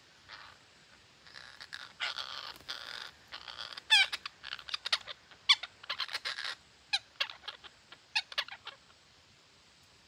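Red-breasted parakeets calling: a run of harsh screeching squawks and sharp chattering notes, loudest about four and five and a half seconds in, dying away near the end.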